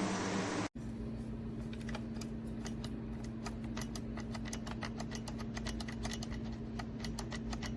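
Typing on a computer keyboard: quick, irregular key clicks over a steady low hum, starting after a short break about a second in.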